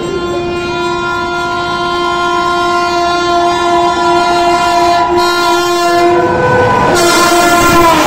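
WAP-7 electric locomotive's horn sounding continuously as the train approaches at speed, growing steadily louder. Near the end the horn's pitch drops as the locomotive passes, and the rushing noise of the train at speed takes over.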